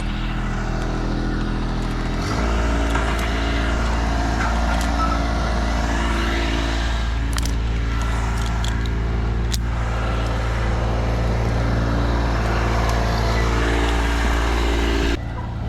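An engine running steadily, rising in level about two seconds in and dropping off abruptly near the end, with a few faint clicks.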